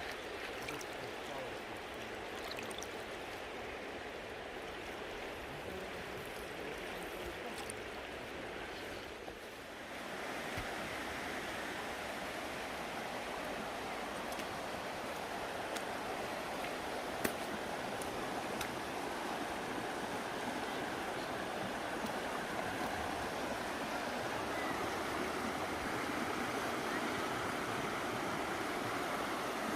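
River water rushing and splashing steadily. It dips briefly and then grows louder from about ten seconds in. A single sharp click comes about seventeen seconds in.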